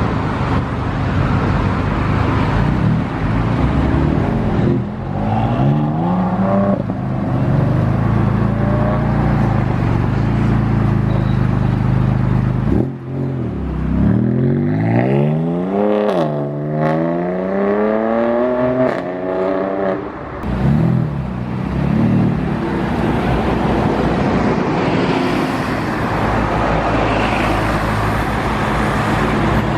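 Sports car engines running at low revs, with a car revving and accelerating away in rising sweeps of engine pitch through the middle, broken by brief drops between them.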